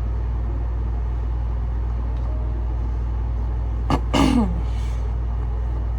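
Steady low hum or rumble. About four seconds in, a click and then a brief vocal sound falling in pitch.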